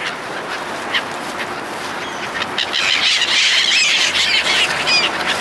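A flock of seagulls calling, many at once and overlapping. The calls grow denser and louder from about halfway through.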